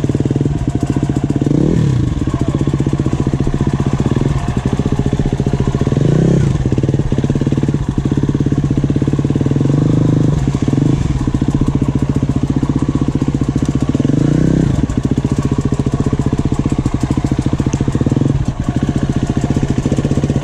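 KTM EXC-F four-stroke dirt bike engine running at idle, revved up and back down briefly five times, roughly every four seconds, while the bike is walked through mud.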